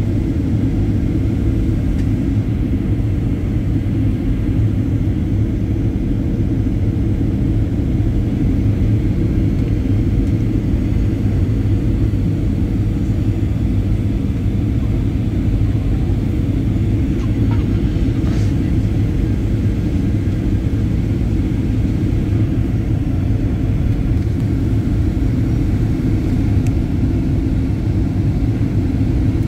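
Steady low rumble of an aircraft cabin in flight on descent: engine and airflow noise, unchanging throughout.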